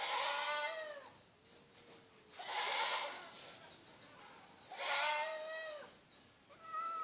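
Domestic cats yowling in a fight standoff: three long, wavering yowls about two and a half seconds apart, each about a second long, then a higher-pitched one starting near the end.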